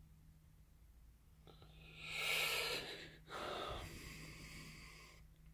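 A person breathing out heavily twice: a louder breath about two seconds in, then a longer, softer one that fades away.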